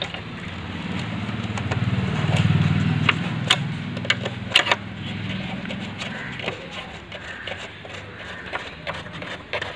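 A motor vehicle's engine running, rising from about a second in to a peak near two and a half seconds, then fading out by about six seconds. Scattered sharp metallic clicks come from a spanner working on the motorcycle's fork clamp bolts.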